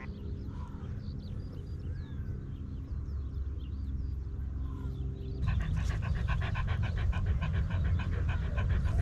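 A dog panting rapidly, about four breaths a second, starting about five seconds in. Before that, faint bird chirps over a low steady hum.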